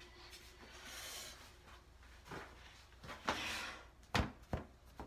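Faint rubbing and scratching with a few short light clicks as a small hair edge brush and hair products are handled.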